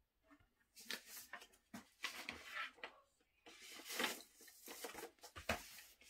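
A vinyl LP being slid back into its sleeve and the sleeve and album cover handled: soft, uneven rustling and scraping in short bursts, loudest about four seconds in.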